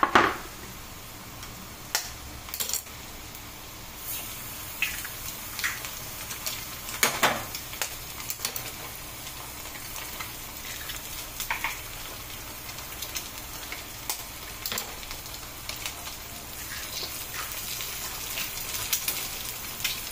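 Onions frying in coconut oil in a kadai, a steady sizzle, with scattered sharp knocks and scrapes of a utensil on the pan as eggs are cracked in and stirred. The loudest knocks come right at the start and about 7 seconds in.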